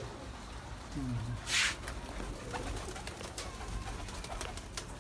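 Domestic pigeons in a loft: one low coo about a second in, followed by a short rustling burst and scattered light clicks over a steady low hum.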